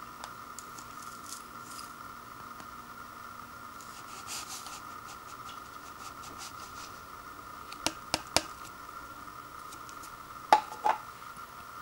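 Dry powdered soup mix sliding out of a paper cup into a ceramic bowl with a soft, crackly rustle, followed by three quick sharp taps about eight seconds in and two louder knocks near the end.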